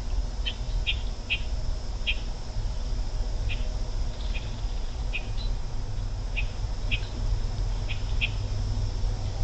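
Short, high bird chirps, about a dozen, spaced irregularly, over a steady low rumble.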